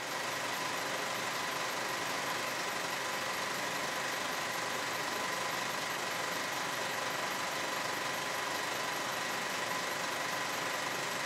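A steady mechanical whirring hiss with a faint even hum, holding level throughout.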